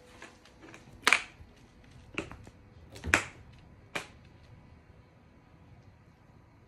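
A kitten's play knocks against a plastic storage bin and hardwood floor: four sharp knocks and clatters about a second apart, the first and third loudest, then quiet rustling as the kitten settles on the floor.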